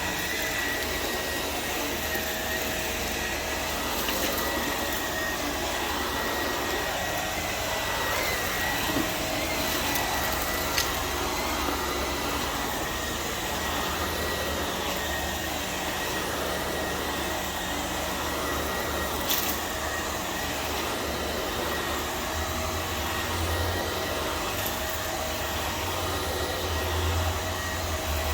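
Vacuum cleaner running steadily, a constant rushing noise with a thin high whine, broken by a few short sharp clicks.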